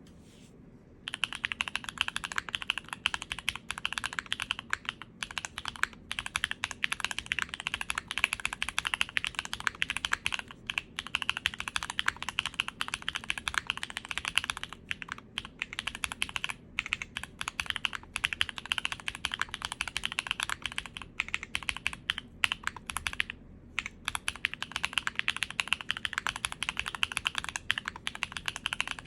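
Steady fast typing on a Jelly Evolv custom mechanical keyboard with Gateron Baby Raccoon linear switches, GMK keycaps, a polycarbonate plate and full foam, starting about a second in with a few short pauses.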